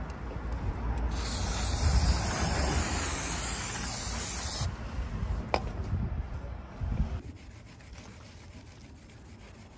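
Aerosol can spraying onto a motorcycle's front brake disc in one hiss of about three and a half seconds, starting about a second in, over a low rumble. Then the disc is rubbed by hand with ultrafine steel wool, a quieter scratchy rubbing.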